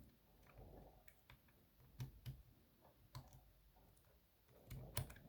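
Faint, irregular metallic clicks and taps from handling a dimple lock cylinder while its core is worked out of the housing; the loudest click comes near the end.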